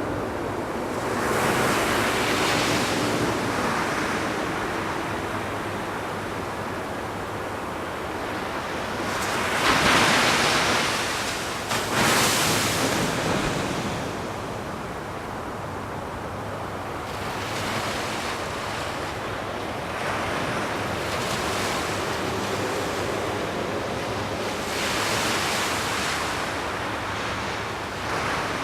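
Ocean surf: waves breaking and washing in, the rushing swelling and fading several times and loudest about ten to thirteen seconds in, with wind buffeting the microphone.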